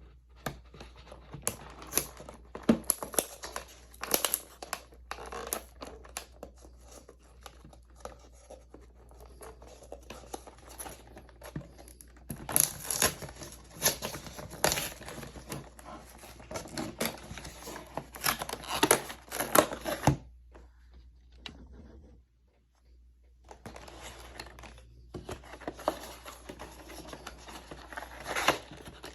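Packaging of a Yu-Gi-Oh! card display box being handled: plastic and card crinkling and tearing, with irregular sharp crackles and clicks. It breaks off for about three seconds about two-thirds of the way through, then starts again.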